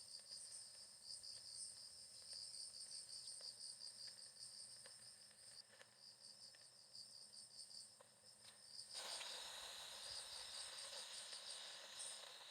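Insects chirping in steady, fast pulsing high trills, with a few faint light clicks. About nine seconds in, a steady hiss starts suddenly under the chirping.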